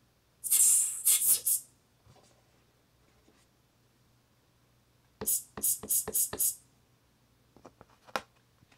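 Open hi-hat drum samples played from the pads of a Native Instruments Maschine MK1 controller: a group of three or four hits about half a second in, then a run of six quick hits about five seconds in. A few faint taps and one more sharp hit come near the end.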